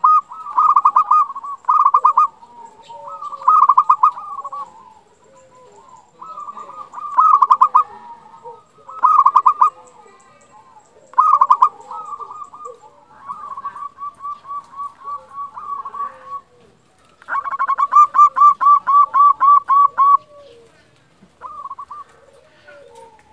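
Zebra dove (perkutut) singing: bursts of quick, pulsed coos repeated every second or two, with fainter runs between them and one longer run of about three seconds near the end.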